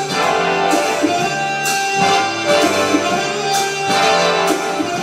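Instrumental music with guitar, held notes over a steady beat of about one stroke a second, between sung lines of a song.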